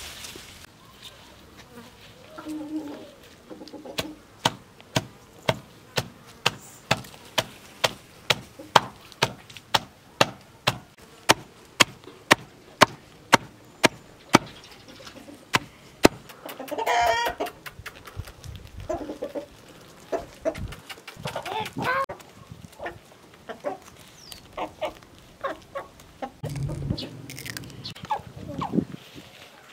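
Knife chopping leafy greens on a wooden tree-stump block, a steady run of sharp knocks about two to three a second that stops around the middle. Chickens clucking, loudest just after the chopping stops and again near the end.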